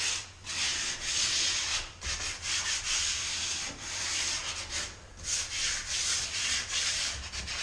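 Hand sanding a wooden door frame with 80-grit sandpaper: a scratchy hiss in repeated back-and-forth strokes with short breaks between them.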